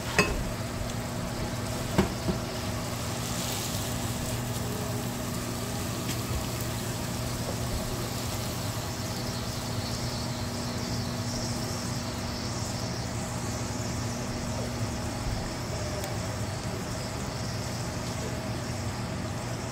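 A steady low hum, with two sharp clinks, one right at the start and one about two seconds in, as a metal mesh strainer is set on a glass measuring cup and a pan of ground meat is tipped over it to drain the fat.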